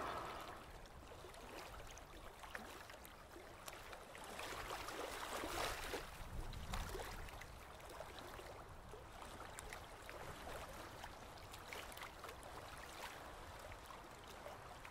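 Faint water ambience of gentle lapping and gurgling, with small irregular splashes and clicks, swelling slightly in the middle.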